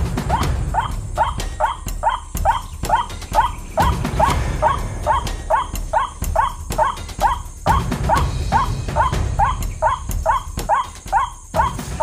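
Recorded white-breasted waterhen (ruak-ruak) call played through a loudspeaker as a lure: a fast string of short rising notes, about three a second, repeating on and on.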